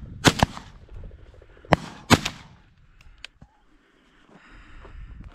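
Shotguns firing four quick shots in about two seconds, two close together near the start and two more a little later, from several hunters shooting at flushing rooster pheasants.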